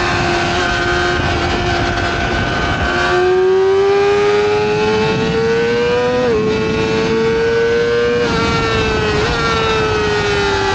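Yamaha R6's inline-four engine running at high revs on track in third gear. Its pitch sags slightly, then climbs steadily under throttle for about three seconds and dips briefly. It climbs again for a couple of seconds, then falls away slowly as the throttle eases off, with a short blip.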